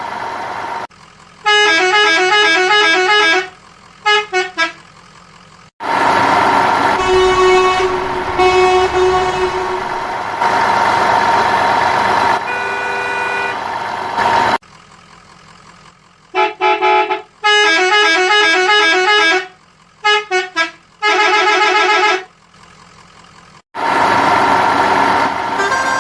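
Vehicle horn honking in quick stepping musical patterns, in two groups of runs, between stretches of steady noisy truck-like running.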